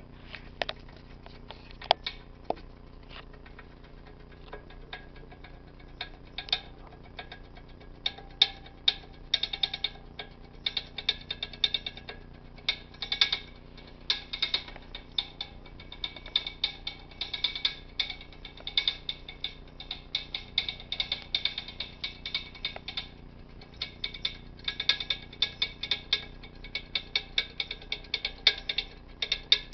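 Radiator tapping and ticking in quick irregular clicks, like a drumbeat: a few scattered taps at first, building into dense runs of rapid clicks, with a short lull about two-thirds of the way through.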